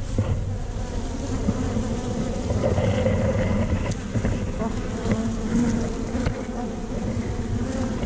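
Honey bees buzzing in and around their nest in a hollow tree trunk: a steady, wavering hum.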